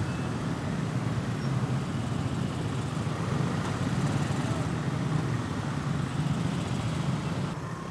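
Steady rumble of dense motorcycle traffic, many motorbikes running together.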